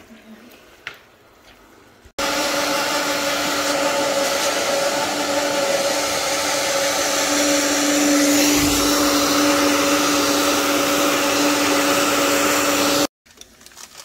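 Hand-held hair dryer blowing on damp hair, a steady rushing with a motor hum. It starts suddenly about two seconds in and cuts off near the end.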